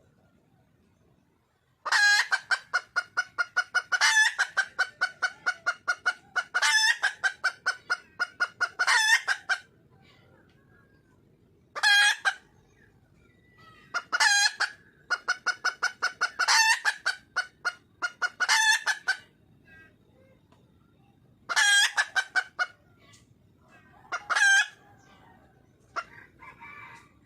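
Red junglefowl hen calling: rapid runs of clucking notes, about eight a second, in bouts of one to two seconds with short pauses between. This is the wild hen's call to attract a male.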